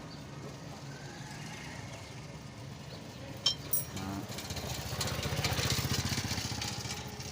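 A small motorcycle engine running with a fast, even beat. Two sharp clicks come about three and a half seconds in, then the engine gets louder for a couple of seconds.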